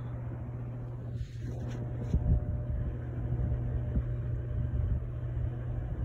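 JCPenney ceiling fan running on high speed forward: a steady motor hum, with the moving air buffeting the microphone in low gusts that grow stronger from about a second and a half in.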